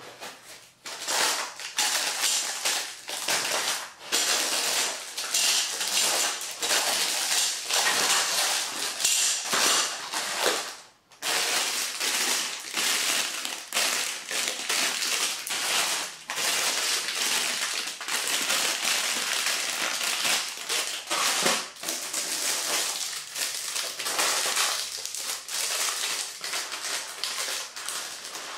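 Clear plastic wrapping crinkling and rustling almost without a break as plastic-wrapped shelf parts are handled and pulled about, with a brief pause about a third of the way through.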